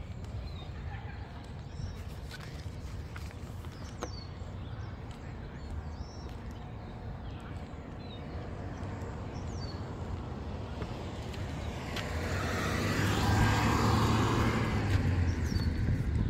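Outdoor park ambience with small birds chirping now and then. A car's sound swells and passes from about twelve seconds in.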